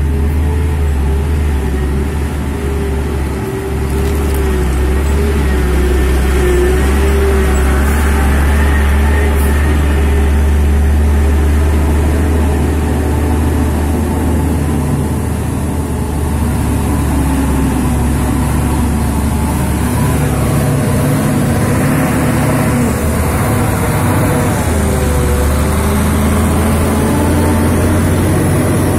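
Heavy tanker truck's diesel engine running under load as it crawls through deep mud, steady and loud, its pitch dipping and rising with the throttle near the end.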